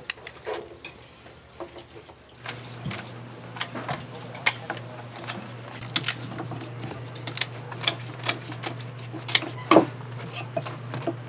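Scissors snipping through the shells of cooked red snow crab legs on a plastic cutting board: a run of sharp, irregular clicks and snips. A steady low hum comes in about two seconds in.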